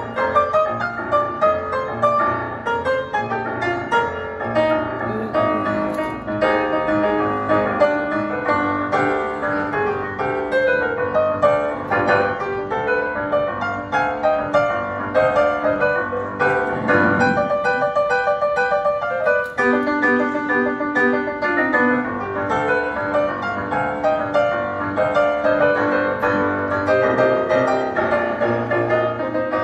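Solo piano played continuously, a dense run of notes across the keyboard. A little past halfway the low notes drop out for a couple of seconds and only higher notes sound, then the full texture returns.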